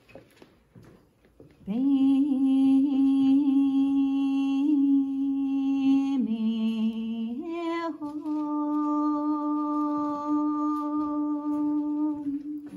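A single voice chanting long, held notes in the manner of a Buddhist prayer chant. The pitch steps down about six seconds in and rises again a moment later, then holds until near the end.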